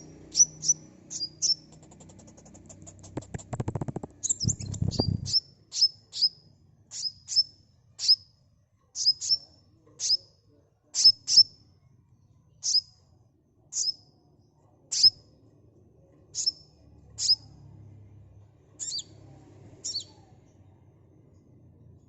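Sunbird calling: a series of sharp, high chips that drop quickly in pitch, repeated roughly once or twice a second, with a quick high trill about two seconds in. A brief low rumble sounds underneath around four seconds in.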